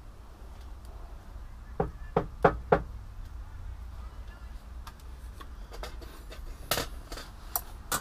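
A crucible of freshly melted copper being knocked to shake out leftover dross and copper: four sharp knocks in quick succession about two seconds in, then a few fainter clicks near the end, over a low steady hum.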